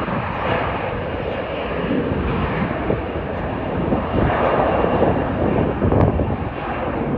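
Jet airliner taking off, its engines a steady rushing noise at takeoff thrust, swelling slightly partway through.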